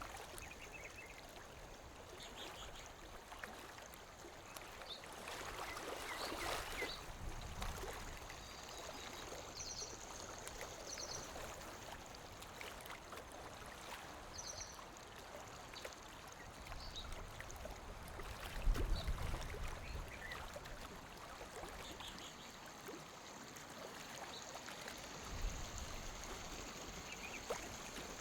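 Lake water lapping gently against the shore, a steady wash that swells and ebbs, with a couple of heavier low slaps, the loudest a little past the middle. Faint short high chirps come and go.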